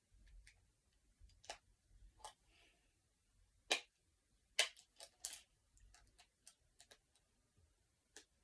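Sharp, irregular plastic clicks from fidget toys being worked by hand, one of them pressed with a Tangle toy rather than sore fingers, about fifteen clicks at uneven spacing.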